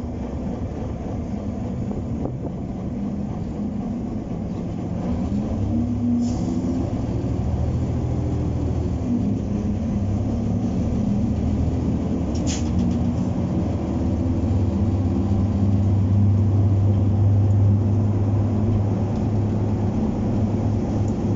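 W.G. Bagnall 0-6-0 diesel-mechanical shunter's engine running under power as it moves a coal wagon, its note rising and falling for several seconds and then holding steady, getting slightly louder. A couple of short sharp clicks cut through, the clearest about twelve seconds in.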